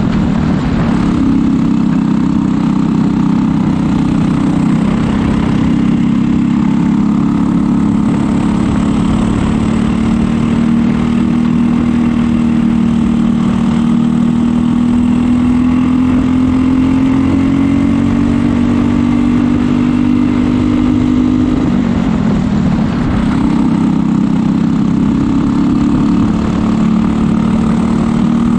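Briggs & Stratton LO206 single-cylinder four-stroke kart engine running under race load. Revs dip briefly at the start and drop sharply about 22 s in as the kart slows for corners, then climb again; in between, the pitch rises slowly along a long straight.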